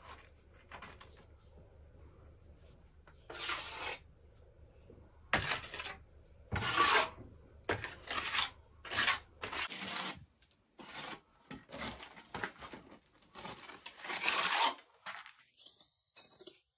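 Irregular scraping strokes of a hand tool spreading and smoothing wet lime render over old brickwork, each stroke under a second long with short pauses between.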